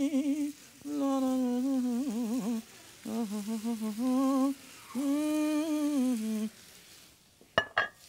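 A man humming a tune in several long, wavering phrases with short breaks between them. Two sharp clicks follow near the end.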